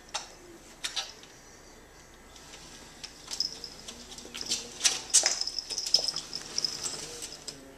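A cat pawing at a sliding glass door: a few sharp clicks of claws on the glass and metal frame, then from about two and a half seconds in a dense run of clicks with a high scraping squeak, loudest a little past the middle.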